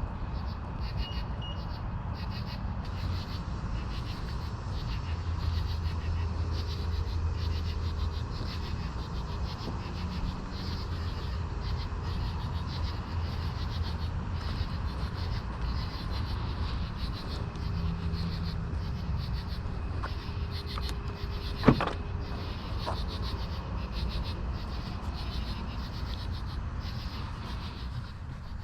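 A BMW i7 xDrive60 electric sedan driving, with steady low road and tyre rumble and no engine note, a faint steady tone coming and going over it. A single sharp click sounds about 22 seconds in.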